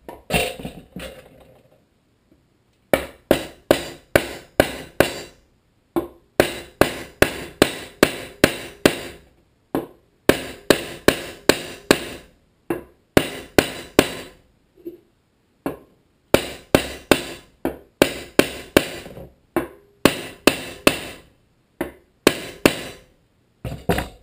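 Hammer striking a wooden block to drive an oil seal into a Tecumseh HSK70 aluminium crankcase cover: sharp, evenly spaced knocks about two a second, in runs of several strikes with short pauses between them.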